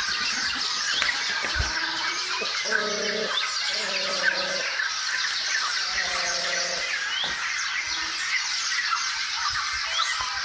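Many birds calling at once in a dense, continuous chatter of chirps, with a few low, drawn-out calls standing out in the middle.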